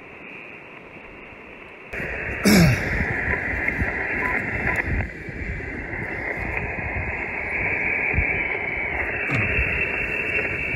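Hiss of 20-metre band noise from an Icom IC-705 transceiver's speaker, receiving on upper sideband at 14.317 MHz. The hiss comes up about two seconds in, with a sharp pop shortly after and a couple of brief falling tones.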